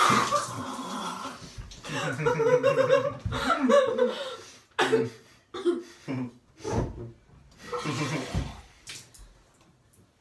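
Stifled laughing and gurgling through mouthfuls of water, with a loud splutter of water at the start and water splashing in a bathtub.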